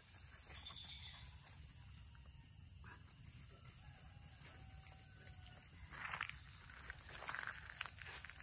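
Night insects, likely crickets, chirping in a steady high pulsing drone, with rustling of a dog moving through the grass. The rustling grows louder about six seconds in and again near the end.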